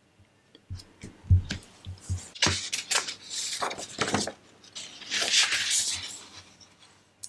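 Sheets of paper being handled and slid across a desk: a few light knocks and thumps, then two spells of paper rustling and sliding as one sheet is swapped for the next.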